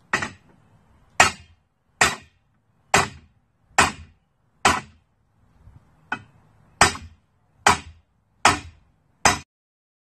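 Sharp metal-on-metal hammer blows on a Porsche 944 torque tube's driveshaft, driving the shaft out of the tube. There are eleven ringing strikes, about one every 0.8 s, with a short pause about halfway through.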